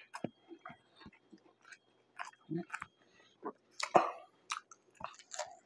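Close-miked mouth sounds of a person chewing food, with wet smacks and clicks. About four seconds in comes a louder, crunchy bite into a wrap.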